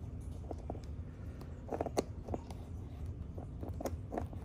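Plastic wrapping on a boxed card set being cut open: a scatter of faint, irregular small clicks and crinkles, bunched together about two seconds in.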